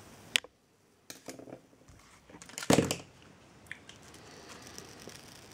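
Workbench handling noise: a sharp click near the start, some light rustling, then a louder short knock or clatter a little under halfway through, followed by faint scattered ticks.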